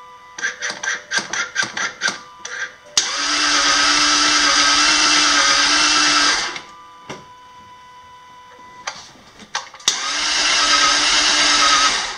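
2001 Jaguar XK8's 4.0-litre V8 cranking on the starter motor and never firing, twice. The first steady whir lasts about three and a half seconds; after a pause a second one lasts about two seconds. Each is preceded by a quick series of clicks. The engine turns over but does not catch, despite fuel and starter fluid.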